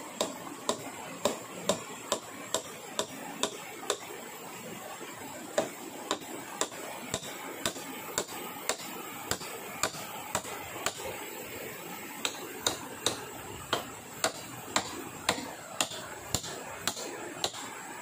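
A hand tool striking wood in a steady run of sharp blows, about two a second, pausing briefly twice.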